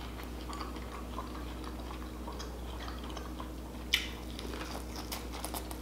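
A single crisp bite into a piece of Cajun-seasoned corn on the cob about four seconds in, with faint small mouth and chewing clicks around it over a low steady hum.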